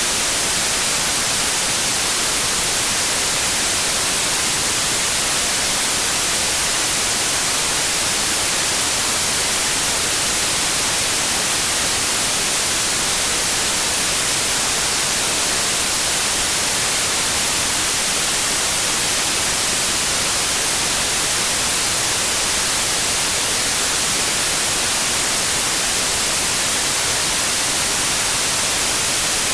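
Generated white noise: a steady, even hiss, strongest in the highs, with no change in level.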